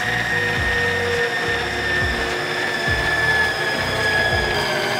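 Electric stand mixer running steadily with a high motor whine. Its flat beater is turning cake mix, oil and egg into a crumbly dough.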